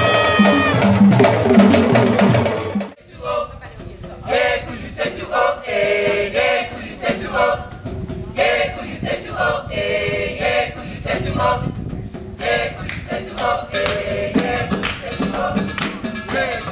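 Loud hand-drumming that cuts off abruptly about three seconds in, followed by a group of voices singing together over sharp rhythmic claps.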